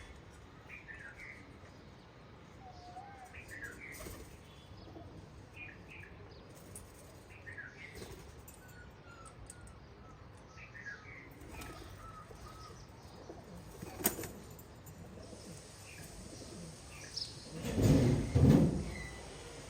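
Wild parrots giving short, high chirps and squawks again and again at a feeding spot shared with pigeons. Near the end comes a loud flurry of flapping wings.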